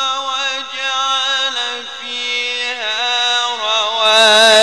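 A man's voice reciting the Quran in the melodic mujawwad style through a microphone, holding long notes with slow bends and ornaments. About four seconds in the voice grows louder and brighter.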